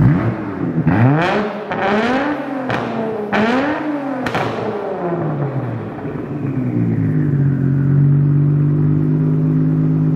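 Nissan Skyline GT-R R33's twin-turbo RB26DETT straight-six, breathing through a freshly fitted Tomei titanium exhaust, revved in several quick blips with sharp cracks between them. It then drops back and settles into a steady idle.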